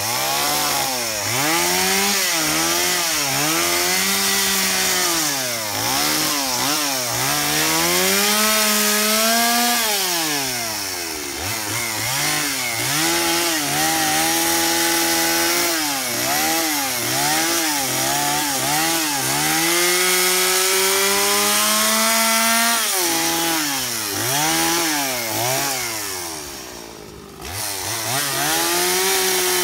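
Stihl two-stroke chainsaw cutting into a wooden carving, the engine revving up and easing off again and again as the cuts are made. Near the end it drops away briefly before revving up again.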